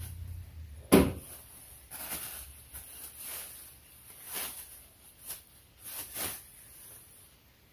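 Handling noises while unpacking a boxed metal gun rack: one sharp knock about a second in, then a string of softer scuffs and rustles.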